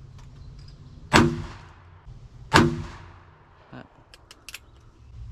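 Two pistol shots about a second and a half apart, each a sharp crack with a short echoing tail. A few faint clicks follow.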